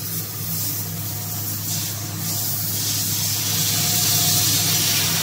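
Twin-screw food extruder line running: a steady low machine hum with a hiss over it that grows louder about three seconds in.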